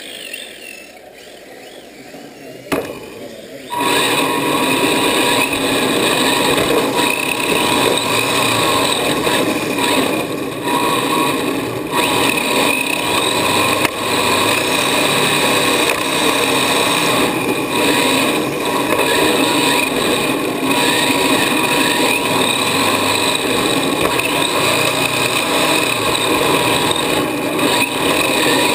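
Radio-controlled drift car's motor and gears whining close to the microphone. The sound starts loud about four seconds in, after a quieter stretch with a single knock, and its pitch rises and falls as the throttle is worked.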